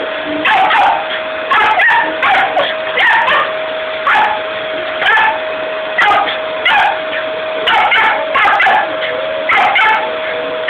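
Small white dog barking at a vacuum cleaner, about one bark a second and sometimes two in quick succession. The vacuum cleaner runs underneath with a steady whine.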